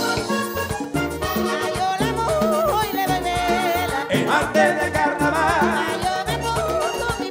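Live Panamanian típico band music: accordion lead with a wavering melody over electric bass and conga rhythm.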